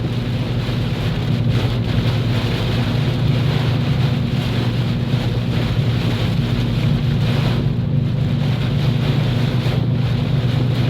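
Heavy rain and high wind beating on a moving vehicle, a dense steady rush over a constant low drone.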